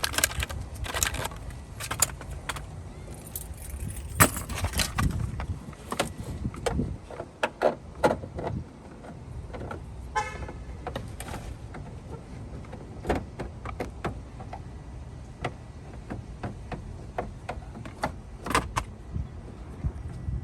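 Scattered clicks, knocks and rattles of hands handling plastic tail-light parts and bulbs, with a short rapid rattle about ten seconds in, over a low outdoor rumble.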